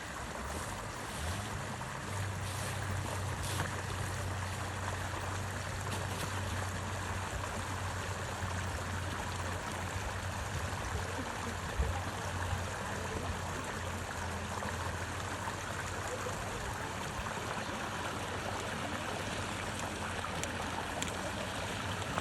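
Steady rush of flowing stream water, with a low rumble underneath.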